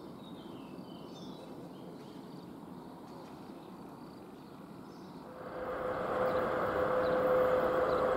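Faint outdoor ambience with a few bird chirps, then from about five and a half seconds in a VL80T electric locomotive with a freight train approaching: a rising rumble of the train with a steady hum in it.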